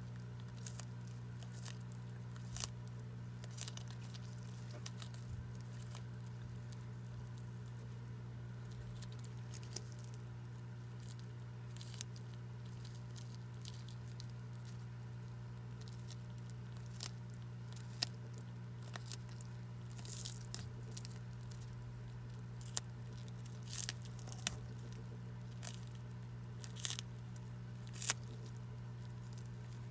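Horsfield's tortoise biting and tearing a hand-held leafy green, with scattered crisp snaps and crunches that come more often in the second half. A steady low hum runs underneath.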